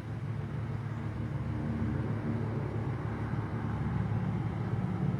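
Steady low-pitched background hum with no distinct events.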